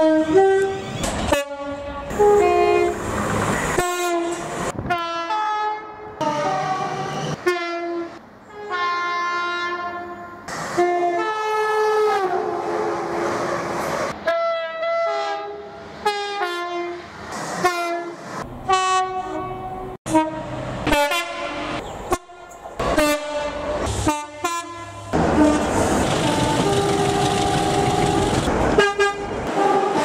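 Multi-tone train horns sounded over and over in quick short blasts that step between high and low notes, one dropping in pitch as a train passes. Near the end a train runs past loudly with wheel noise and a held horn note.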